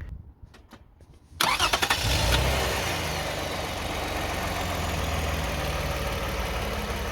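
2009 Toyota Sienna's 3.5-litre V6 being started: a few faint clicks, then about a second and a half in the starter cranks briefly and the engine catches and settles into a steady idle.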